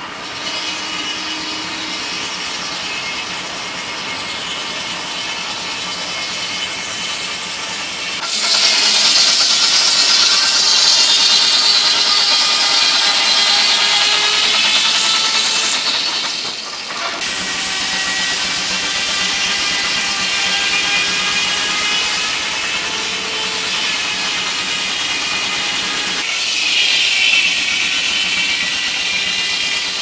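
Large circular sawmill blade, driven by a steam traction engine, whining as it cuts through a log. The ringing whine grows louder about a quarter of the way in, dips briefly just past halfway, then carries on.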